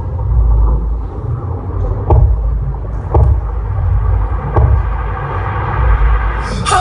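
Deep, rumbling bass from the song's quiet instrumental break, played loud over a hall sound system and picked up by a phone microphone, with three sharp hits about a second apart. Right at the end the full song comes back in with singing.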